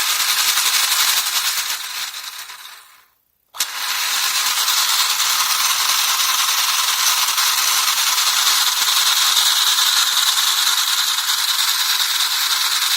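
Payá Santa Fe O-scale electric toy locomotive running: a steady high-pitched whir of its motor and gearing with a rattle of wheels on track. The sound fades out about three seconds in, drops to silence for about half a second, then resumes steadily.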